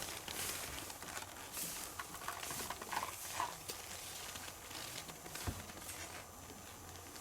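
Footsteps and small rustles outdoors, with a few faint, short high animal calls about three seconds in.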